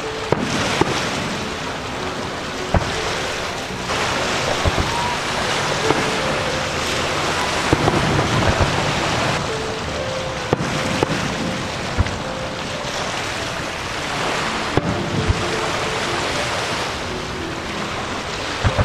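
Distant fireworks bangs going off one at a time, every second or two, over a steady rushing noise of wind on the microphone.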